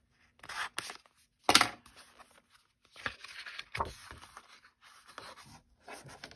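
Clear plastic packaging crinkling and cardstock pages rustling as a 6x6 paper pad is handled and opened, in a run of short crackles, the loudest and sharpest about one and a half seconds in.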